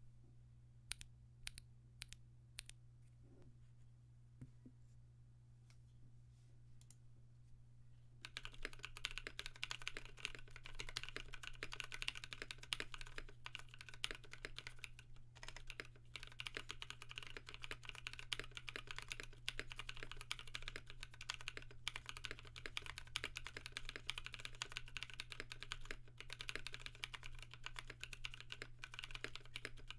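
Mechanical keyboard with lubed NovelKeys Cream linear switches, aluminium plate and PBT keycaps in an acrylic Tofu case: a few single keystrokes, then from about eight seconds in, steady fast typing. A low steady hum lies underneath.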